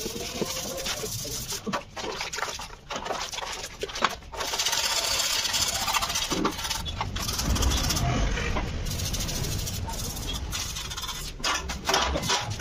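Hand sanding of plastic scooter body panels: sandpaper rubbing back and forth in a scratchy hiss, with a few sharp knocks from the panels being handled in the first few seconds.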